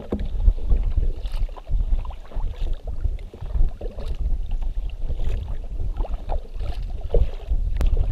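Kayak paddling: a double-bladed paddle dipping and splashing on alternate sides, with irregular water drips and wind rumbling on the microphone.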